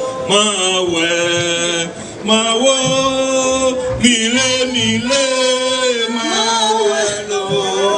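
A man singing a slow melody in long, held, wavering notes, with a short break between phrases about two seconds in.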